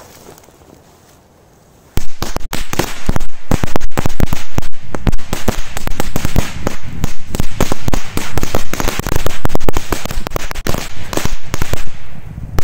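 A firecracker belt (a string of small firecrackers) going off: after about two seconds of quiet, a loud, rapid, continuous string of sharp bangs that lasts about ten seconds.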